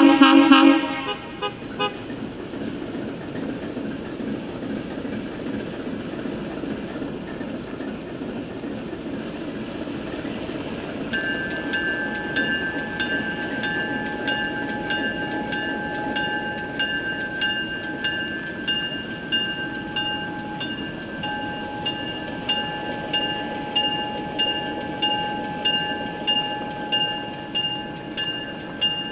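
A diesel locomotive horn gives one short toot, then the ALCO diesel locomotives idle steadily. About eleven seconds in, a locomotive bell starts ringing, about one and a half strokes a second, as the crew readies to make switching moves.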